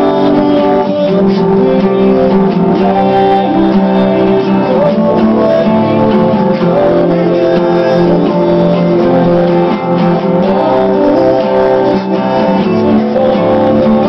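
Solo steel-string acoustic guitar played without a break: picked and strummed notes and chords, each left ringing into the next.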